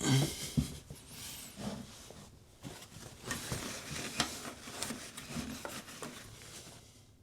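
Plastic drain-pump filter of an LG front-load washer being handled and screwed back into its housing: irregular plastic clicks, knocks and rubbing, with a louder knock right at the start.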